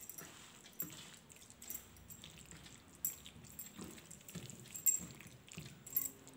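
A hand mixing a thick batter with chopped bamboo shoots in a steel bowl: irregular wet squelching strokes, with light clinks from bangles on the wrist.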